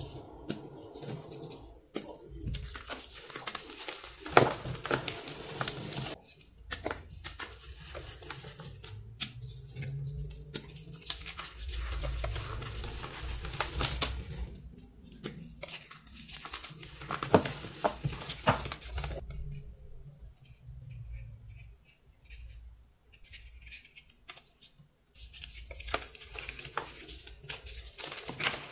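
Hands crushing and crumbling dry, powdery blocks: irregular crunching and crackling with sharp snaps as pieces break. There is a quieter pause about two-thirds of the way through.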